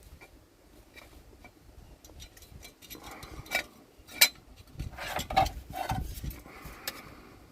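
Metal clinks, taps and scrapes of a diff guard plate and its bolts being worked into place by hand, scattered at first and busiest in the middle, with one sharp clink a little past the halfway point.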